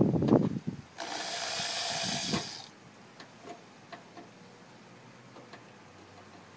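Power drill running in one steady burst of about a second and a half, boring a hood-pin hole through the hood's sheet metal. It is preceded by a few bumps from handling, and faint ticks follow.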